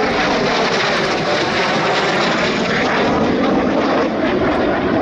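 Dassault/Dornier Alpha Jet flying overhead, its twin Larzac turbofans making a steady, loud rushing jet noise.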